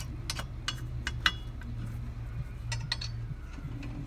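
Lug nuts clinking and clicking against the wheel studs and steel wheel as they are threaded on by hand: a run of sharp metal clinks, the loudest about a second in, over a steady low hum.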